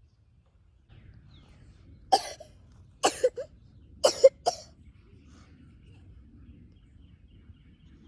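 A person coughing: several sharp coughs in three quick groups about a second apart, over a faint low background.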